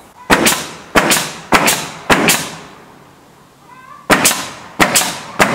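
Pneumatic coil nailer firing nails into wood siding boards: seven sharp shots, four in quick succession about two-thirds of a second apart, then a pause and three more. A faint short high call is heard in the pause.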